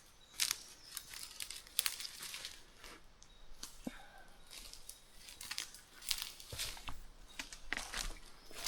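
Irregular crackling and rustling of dry leaf litter and twigs underfoot as someone picks a way through debris on the forest floor, with a couple of sharper cracks about half a second and about two seconds in.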